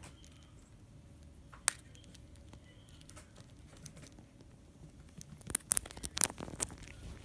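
A pet parrot pecking and prying at a computer keyboard: a single sharp plastic click early on, then a quick run of clicks and rattles of the keys near the end.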